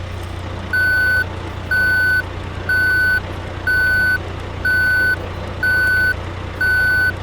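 Forklift reversing alarm beeping steadily about once a second, over a steady low engine rumble.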